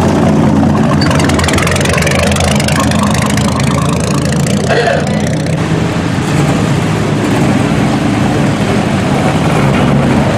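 Classic British sports car engines running at low revs as the cars roll slowly past, a steady engine note with a short rise in revs in the first few seconds.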